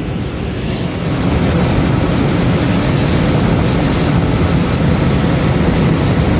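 Cambridge direct-fired makeup air unit running: a loud, steady rush and rumble of moving air that steps up about a second in and then holds.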